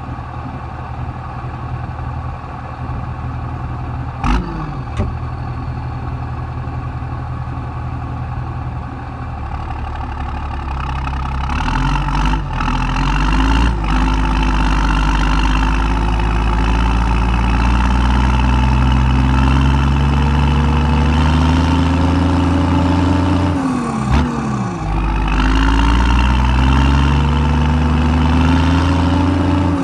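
Case 165's engine idling steadily, with two sharp knocks about four seconds in, then revved up: it gets louder and its pitch climbs slowly, drops sharply about three-quarters of the way through, and climbs again.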